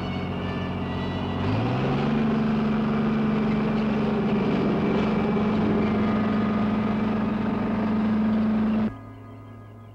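Crawler bulldozer's engine running loud and steady, then revving up to a higher pitch about a second and a half in and holding there as the machine drives off. Near the end the engine sound cuts off abruptly and faint music follows.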